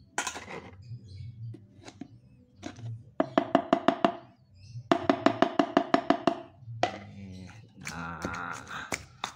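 Pestle pounding spice paste of shallots, garlic, ginger and coriander in a stone mortar: two runs of quick, rhythmic strikes, about eight a second, in the middle, each strike with a short ringing tone. Near the start a spoon scrapes briefly.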